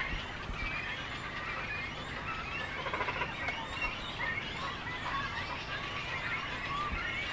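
Birdsong chorus: several small birds singing and chirping at once, with many short, overlapping whistled notes.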